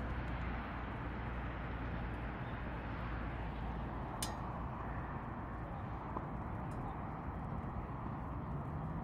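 Large secondary-combustion wood stove burning with a steady rushing flame noise, with a single sharp crackle about four seconds in.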